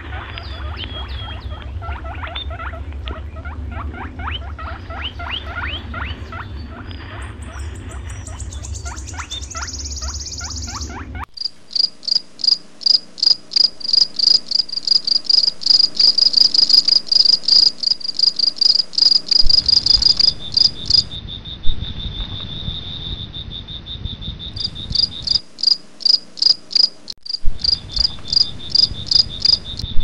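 For the first third, rapid high squeaky chirping calls over a low rumble. Then crickets chirping in even high pulses, about three a second, joined about two-thirds of the way in by a steady unbroken cricket trill.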